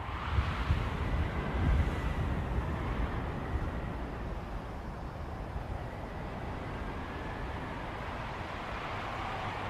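Logo sound effect: a low, rumbling, wind-like noise that swells at the start and then holds steady, with a faint thin high tone above it.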